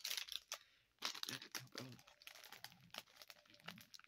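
Plastic packet of a Lego Marvel minifigure blind bag crinkling in the hands as it is pulled at and worked open, in irregular crackles with a short lull about a second in.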